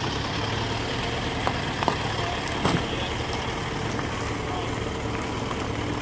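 Four-wheel-drive vehicle engine running steadily at low revs, with a few short knocks about two seconds in.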